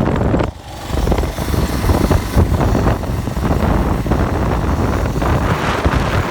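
2006 Kawasaki KLR 650's single-cylinder engine running, with a brief dip in level about half a second in.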